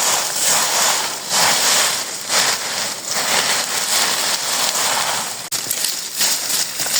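Heavy rain falling, a dense rushing hiss that swells and eases unevenly, with a brief break about five and a half seconds in.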